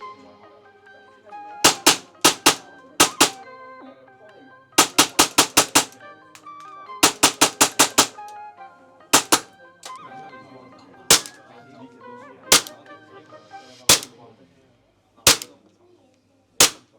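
Tokyo Marui Glock 17 Gen 5 gas blowback airsoft pistol firing on gas: sharp shots in quick strings of four to six, then single shots about a second and a half apart. Background music plays underneath.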